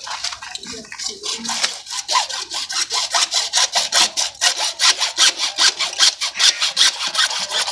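A CPVC plastic pipe being cut with a hand saw: fast, even back-and-forth rasping strokes that grow louder and steadier after about two seconds.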